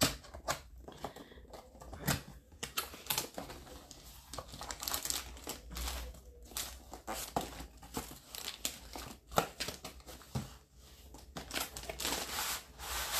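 Cardboard box being opened and its packaging handled: irregular crinkling, tearing and scraping of cardboard and plastic, with many sharp clicks, louder near the end.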